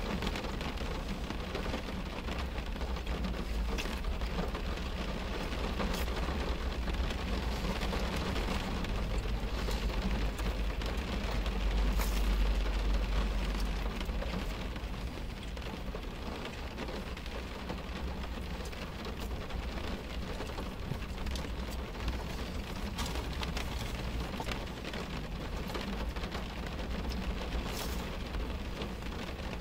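Steady rain falling on a car's roof and windows, heard from inside the cabin, with scattered sharper drop clicks. A low rumble swells and fades around the middle.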